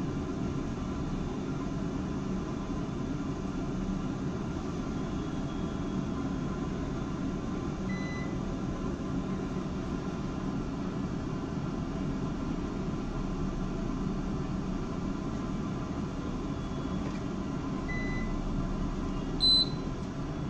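Remi R-8C BL benchtop centrifuge spinning steadily at 4500 RPM, a steady hum. Near the end comes one short, high beep as its one-minute run timer runs out.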